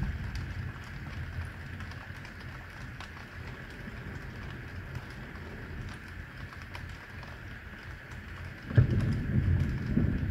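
Steady rain falling, heard as an even hiss, with a deep low rumble that starts suddenly near the end and keeps going.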